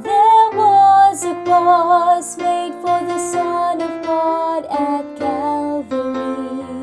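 A female soprano singing a slow gospel hymn melody, holding notes with vibrato and sliding between them.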